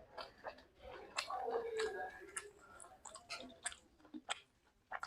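A person chewing a mouthful of food close to the microphone, with irregular soft, wet mouth clicks. The meal is luchi (puffed fried bread) with ghugni (spiced pea curry).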